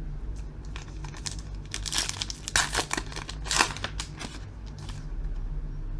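Plastic foil wrapper of a trading-card pack crinkling and tearing as it is opened, with a dense flurry of crackles in the middle.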